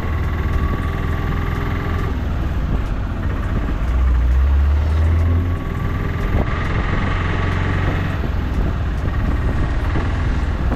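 Steady low rumble of a motor vehicle engine, swelling louder for a second or so about four seconds in.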